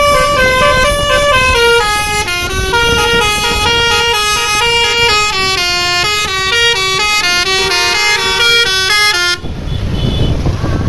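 Indonesian bus 'telolet' multi-tone air horn playing a melody, note after note in quick steps, then cutting off abruptly about nine seconds in, leaving a low rumble.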